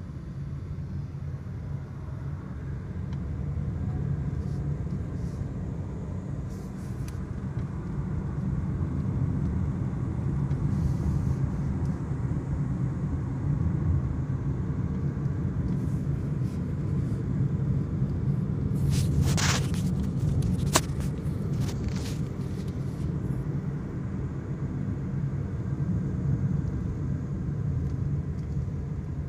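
Car driving along a road, heard from inside the cabin: a steady low rumble of engine and tyre noise. A brief hiss rises and falls about two-thirds of the way through, followed by a single sharp click.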